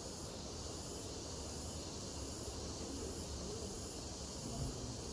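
Steady ambient background noise: an even high hiss over a faint low rumble, with no distinct events.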